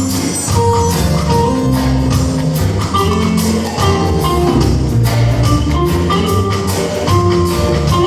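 Instrumental passage of a band song with no vocals: a steady beat of light percussion over a bass line and held melodic notes.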